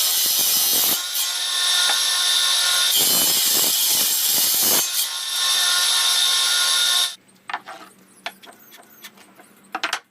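An electric power tool cutting or working wood, running loud and steady with two brief dips, then switched off about seven seconds in; after it stops, a few faint knocks and clicks.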